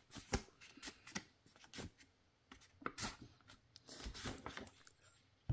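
Faint clicks, taps and scrapes of a cardboard game box and its paper contents being handled, with a short rustle about four seconds in.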